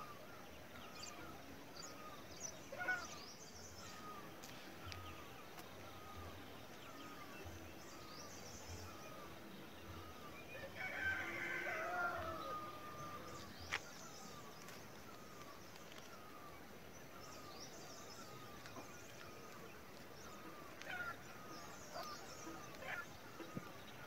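A rooster crowing once, about ten seconds in, one call of about two seconds, over faint small-bird chirping that repeats every second or so. A short sharp click follows the crow.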